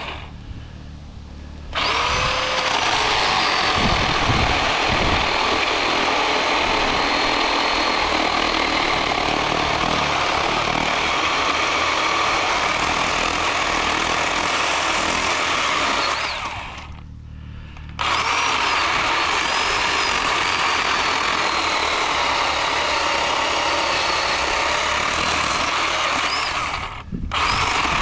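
Battery-powered electric chainsaw cutting into a tree trunk in bursts. It spins up with a rising whine about two seconds in and runs steadily, winds down about sixteen seconds in, then starts again about two seconds later. Near the end it stops for a moment and restarts.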